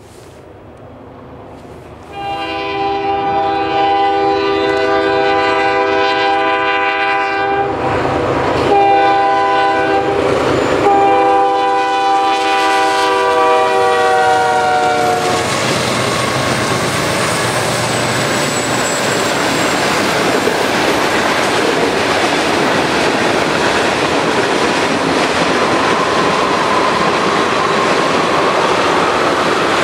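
Canadian National freight train's diesel locomotive air horn sounding as the train approaches, in three blasts with short breaks between, the last one long and dropping slightly in pitch as the locomotive passes. Then the freight cars roll steadily past.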